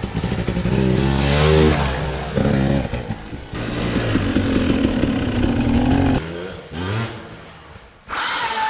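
Small single-cylinder engine revving up and down several times, then cutting off suddenly about six seconds in and dying away. Near the end a different steady motor sound starts abruptly.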